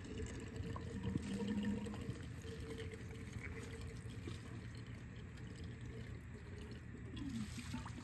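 Coolant faintly pouring and trickling out of a tipped-over radiator onto a drain grate.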